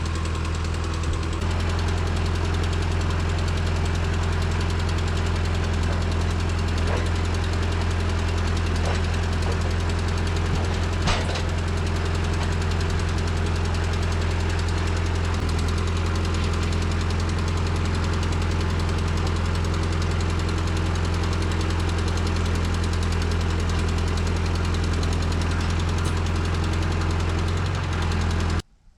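Engine of a Woodland Mills HM126 portable bandsaw mill running at a steady speed, with a single click about 11 seconds in. The sound cuts off abruptly just before the end.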